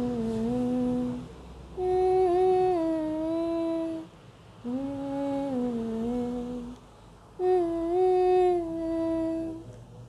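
A woman humming a slow, unaccompanied melody with her mouth closed. It comes in four phrases with short breaks between them.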